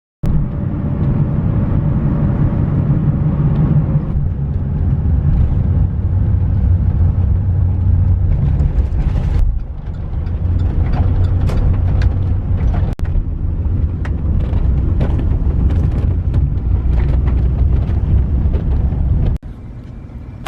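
A motor vehicle's engine runs with a steady low rumble, with scattered sharp clicks and rattles. It starts abruptly, dips briefly about halfway through, and drops off sharply near the end.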